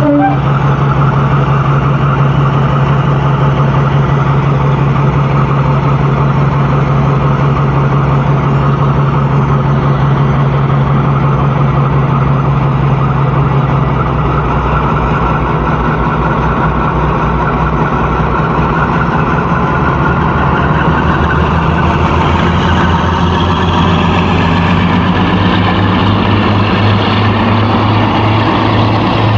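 British Rail Class 52 'Western' diesel-hydraulic locomotive's twin Maybach V12 engines running close by with a loud, steady drone. About halfway through the engine note shifts, then rises gently as the locomotive draws slowly away.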